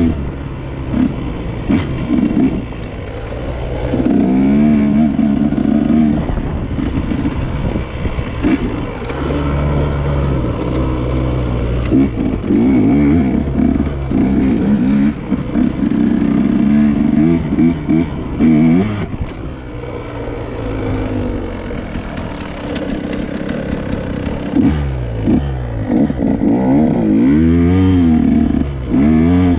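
Dirt bike engine being ridden on a trail, the revs rising and falling over and over as the throttle is opened and closed. It eases off for a few seconds past the middle, then goes through several quick rev sweeps near the end, with some clattering from the bike over the rough ground.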